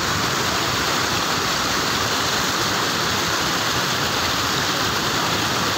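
Water pouring steadily over a low concrete weir, an even, unbroken rush of falling water.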